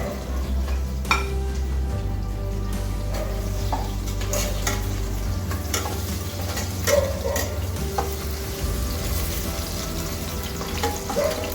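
Chopped green chillies and browned onions sizzling as they fry in hot oil, stirred with a spatula that gives a few sharp clicks against the pan.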